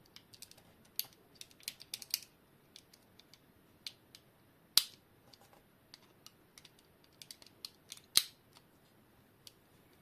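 Scattered small clicks and ticks of a tool prying at the case of a quartz alarm clock movement, with two sharper snaps, about five and eight seconds in.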